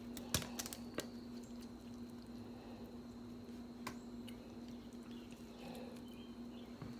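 Faint eating sounds: a few light clicks of crab shell being handled and broken, with soft wet squishing and chewing, over a steady low hum.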